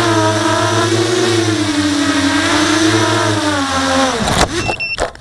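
Five-inch FPV racing quadcopter's motors and propellers buzzing, heard from its onboard camera, the pitch rising and falling with the throttle. About four seconds in the pitch drops away, a few sharp knocks follow as it comes down in the grass, and the motors cut off at the end.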